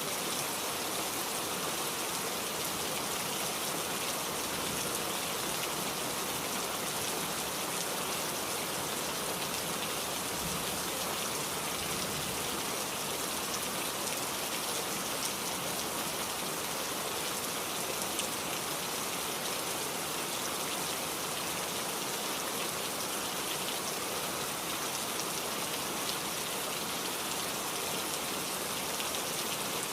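Heavy rain falling steadily, a dense hiss of drops on surfaces with fine individual drop patter.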